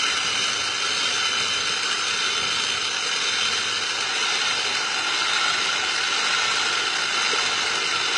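Electric food chopper running steadily at full speed, its blades grinding pork rinds into fine crumbs.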